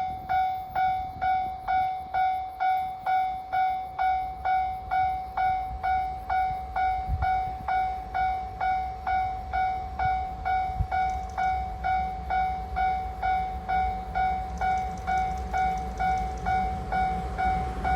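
Japanese railway level-crossing warning bell ringing at a steady beat of about two dings a second, each ding one clear ringing tone. The low rumble of the approaching train starts to build under it near the end.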